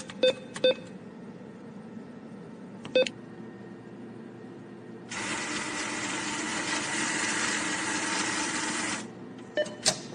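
A few sharp taps of a cat's paws striking wooden cabinet doors. From about the middle, a steady rushing hiss runs for about four seconds and then stops abruptly.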